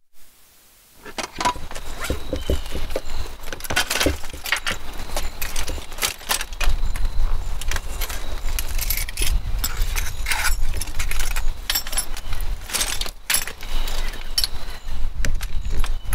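Metal clicks and rattles of a manual wheelchair being unfolded and set up, its frame and armrests knocking into place, with a low rumble underneath from about six seconds in.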